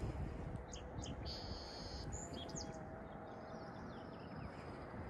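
Birds chirping a few times in the background, mostly in the first half, over a steady low rumble of wind on the microphone.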